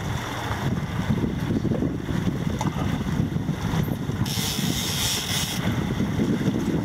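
Boat's Yamaha 115 outboard motors running under way, with wind buffeting the microphone and water rushing past the hull. A brief rushing hiss comes in about four seconds in and stops a second or so later.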